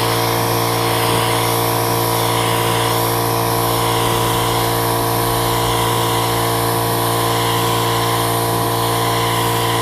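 Small air compressor running steadily, its motor and pump refilling the tank to build pressure back up for a spray-painting gun.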